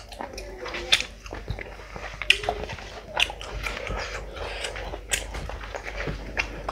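Close-miked chewing and lip-smacking of a person eating curried meat and bread: a dense, irregular run of sharp, wet mouth clicks.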